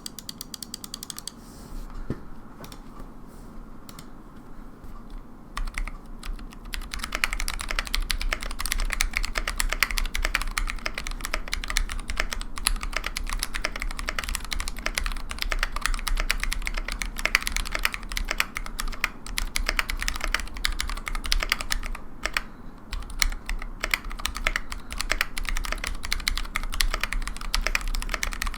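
Typing on a custom mechanical keyboard with lubed Zealios V2 62g tactile switches in a brass plate and GMK keycaps. A few scattered keystrokes at first, then fast continuous typing from about a quarter of the way in, with a brief pause about three quarters of the way through.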